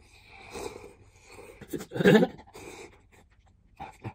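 A person slurping instant ramen noodles from a cup, in several noisy slurps and breaths, the loudest and longest about two seconds in.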